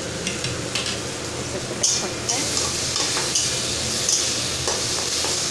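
Food cooking on a gas stove: a steady sizzling and bubbling from a pot of boiling lentils and vegetables and from tomatoes frying in a wok. A metal ladle and spatula stir them, clicking and scraping against the pans several times.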